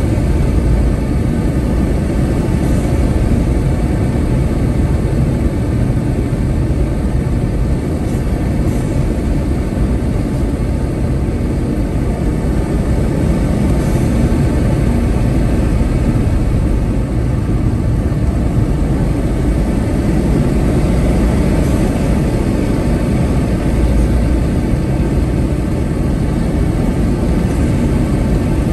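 Steady low rumble of a car's engine and tyre noise, heard from inside the cabin while driving at speed.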